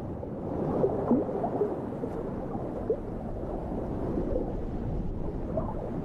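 Underwater ambience: a low, murky rush of water with a few brief squeaky glides.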